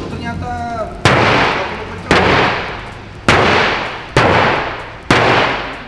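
Sledgehammer blows on a Toyota Agya's laminated windscreen: five hard cracks about a second apart, each dying away, with the glass crazing but holding. A short shout comes just before the first blow.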